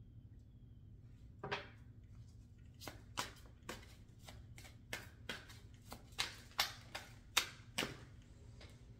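A deck of tarot cards being shuffled and handled by hand: about a dozen sharp card slaps and snaps at irregular spacing, starting about a second and a half in, over a faint low hum.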